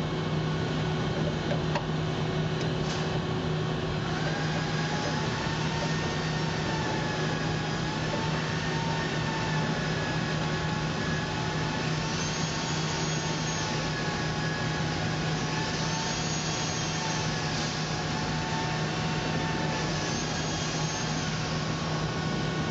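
Steady machine hum and noise, with a faint wavering higher tone joining about four seconds in.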